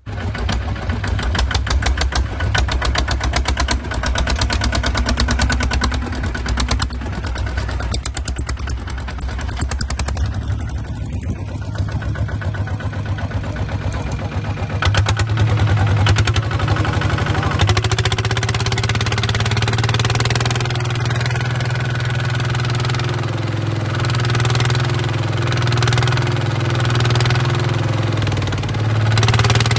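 Engine of a small Kubota bulldozer running steadily with an even, fast chug. About halfway through it picks up and gets louder.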